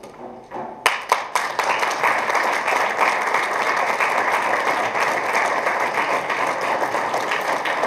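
Audience applauding: a few separate claps about a second in, then steady applause from a room full of people.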